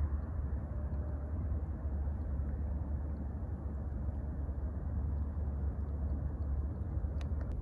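Steady low outdoor rumble with a soft hiss above it, and a faint click near the end.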